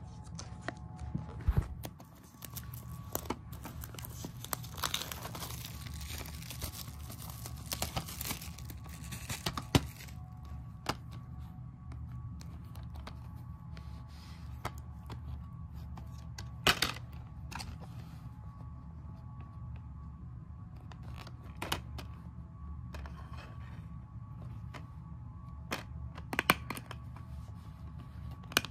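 Plastic shrink-wrap being torn and crinkled off a DVD case for several seconds, then scattered clicks and knocks as the hard plastic case is handled and opened. A steady low hum runs underneath.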